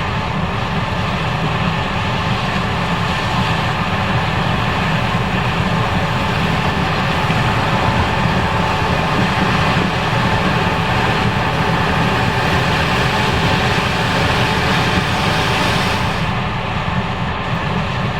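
Case IH 5140 Axial-Flow combine running steadily while harvesting corn: a constant engine and threshing drone with faint steady whines in it. The higher hiss drops away about sixteen seconds in.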